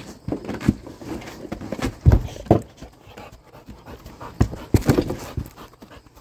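A dog panting and scrambling on wooden deck boards as it struggles while porcupine quills are pulled with pliers, with irregular knocks and thumps of paws and bodies on the boards. The loudest thumps come about two seconds in and again near five seconds.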